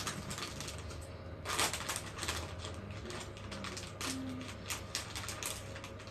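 A plastic snack-chip bag crinkling and crackling in irregular bursts as it is handled and opened by hand.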